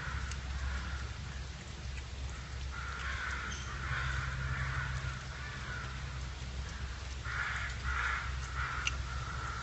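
Bird calls outdoors: a run of calls in the middle and two short calls near the end, over a steady low hum.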